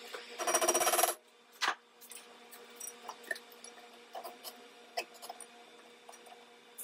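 Brake pads and metal hardware being handled and fitted into a Brembo brake caliper: a short rasping scrape about half a second in, a sharp click, then scattered light metallic clicks and taps.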